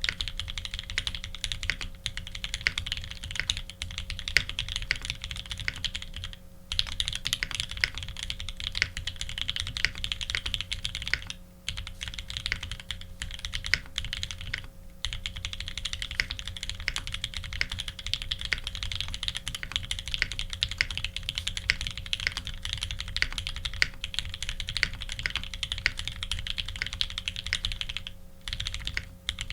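Continuous fast typing on a custom mechanical keyboard with lubed linear H1 switches, an aluminium plate and GMK keycaps: a dense run of keystrokes, broken by short pauses a few times.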